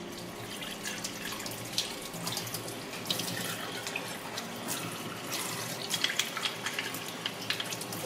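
Tap water running into a stainless steel espresso portafilter basket and splashing into a steel sink, a steady rush with small uneven splashes.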